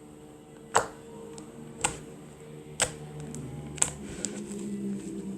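Slime being squeezed and pressed by hand, making sharp pops about once a second: four loud ones and a few fainter clicks.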